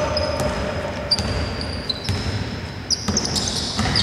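A basketball bouncing a few times on a hardwood court, with short high-pitched sneaker squeaks on the floor, in a large sports hall.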